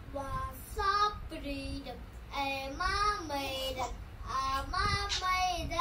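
An infant babbling in long, high, sing-song vowel sounds that glide up and down, five or so in a row with short breaks between them.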